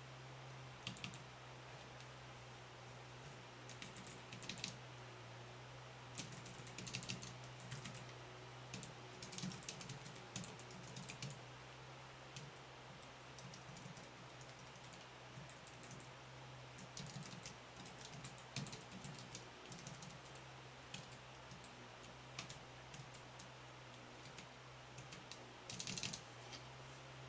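Keystrokes on a FrogPad one-handed keyboard: irregular runs of quick key clicks in bursts, with short pauses between them. A steady low hum runs underneath.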